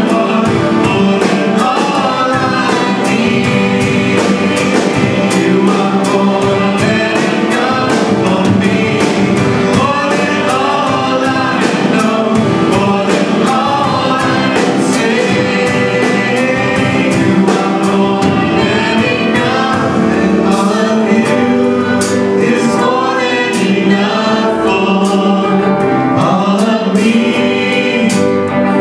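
Live worship band playing a song: electric guitar, keyboard and drum kit with cymbal hits, with voices singing over it.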